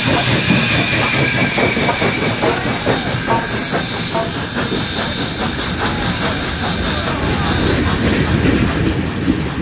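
Union Pacific Big Boy No. 4014, a 4-8-8-4 articulated steam locomotive, passing close by: a rapid, continuous clanking of its rods and wheels over the rails, over a steady high hiss.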